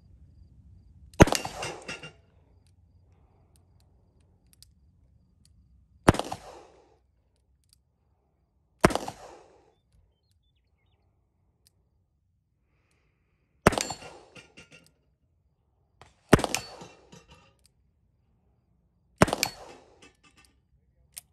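Six double-action shots from a Colt King Cobra 3-inch .357 Magnum revolver loaded with 130-grain .38 Special, fired a few seconds apart at an uneven pace, each shot trailing off briefly in echo.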